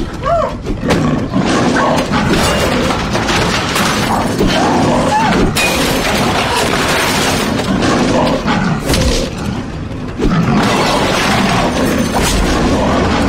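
Film fight-scene sound mix: a music score under repeated heavy hits and crashes, with grunts and cries from the fighters and a monster's roars.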